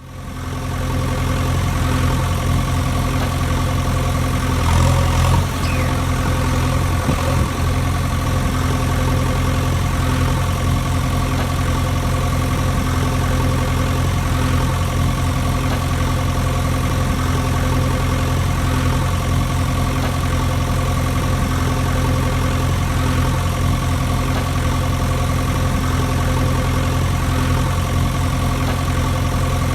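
Steady engine idling drone, fading in over the first second, with a brief swell about five seconds in.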